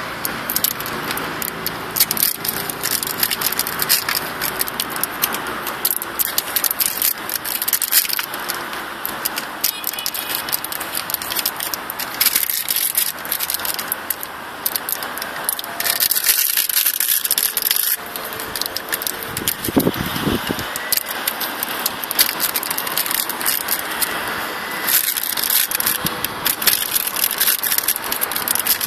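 Plastic packaging crinkling and rustling as it is handled and torn open by hand, in dense, irregular crackles.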